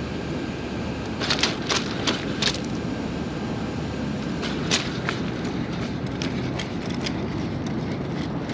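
Boston Dynamics Spot robot dog's feet stepping on gravel and rocks: a run of sharp clicks and crunches, loudest in a quick cluster about a second in, then lighter, irregular steps to the end. A steady low rumble runs underneath.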